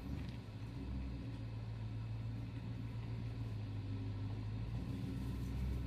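A steady low mechanical hum, like a motor running at a constant speed, with no speech over it.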